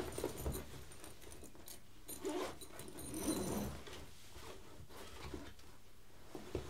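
Rustling and handling of a fabric backpack as it is searched by hand, with scattered small clicks and scrapes as a box is pulled out of it.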